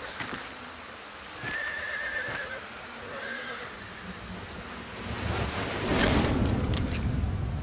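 A high, wavering animal call lasting about a second, with a shorter one a second later, then a low rumbling noise that swells from about five seconds in and stays loud.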